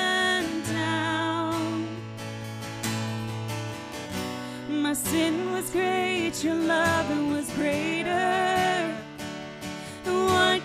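Live worship song: a woman and a man singing into microphones over a strummed acoustic guitar.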